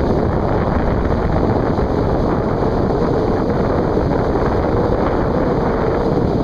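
Wind blowing hard across the microphone over the steady rush of breaking surf.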